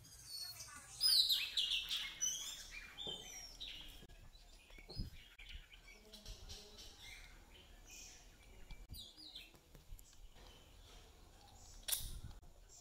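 Small birds chirping in quick, high, falling notes, busiest in the first few seconds. A few sharp clicks of small steel parts being handled, the sharpest near the end.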